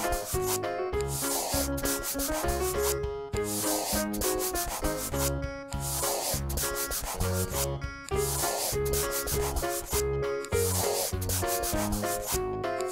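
Scratchy scribbling of a marker or crayon colouring in, in long strokes with short breaks between them, over light children's background music.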